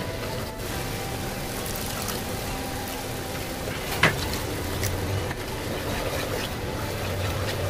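Chilli sauce simmering in a frying pan on a gas burner while a wooden spatula stirs it, over a steady low hum. About four seconds in there is a sharp clink as liquid is tipped into the pan from a small glass.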